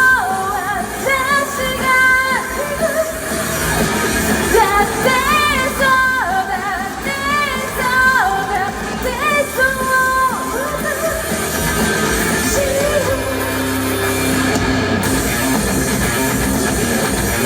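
Rock band playing a song with a lead singer's melody over guitar and drums. The voice drops out about ten seconds in and the band carries on instrumentally.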